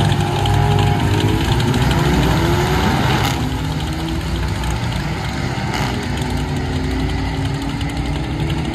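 Car launching off a drag strip's starting line and accelerating hard, its engine note climbing for about three seconds, then a little quieter as it pulls away down the track. A steady low engine rumble runs underneath.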